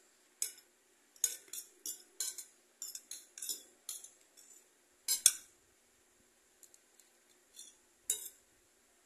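Metal fork and spoon clinking and scraping against a ceramic plate while eating: about a dozen irregular clinks with a high ring, loudest about five seconds in and sparser after that.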